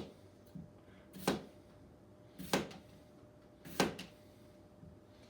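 Kitchen knife slicing through a raw potato and knocking down on the cutting board, four cuts at an even pace of about one every second and a quarter.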